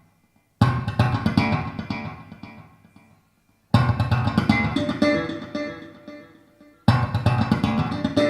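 Plucked-string music played back through Canton Chrono 509 DC bookshelf loudspeakers, recorded in the room. It comes as three phrases, each starting loud and dying away over about three seconds, with brief silences between them.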